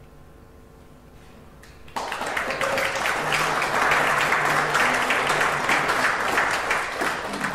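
Audience applauding: a quiet room, then applause starts suddenly about two seconds in and continues, beginning to fade near the end.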